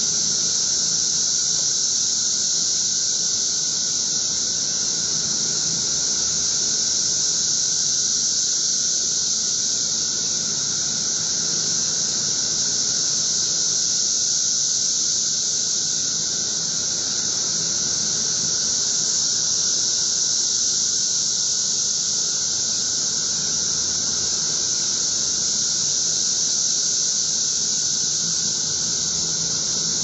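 Chorus of periodical cicadas: a steady, unbroken high-pitched drone of many insects singing together, without pause or change.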